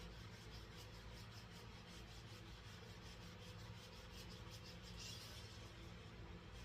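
Near silence: a faint steady hum and hiss, with a faint brief rustle about five seconds in.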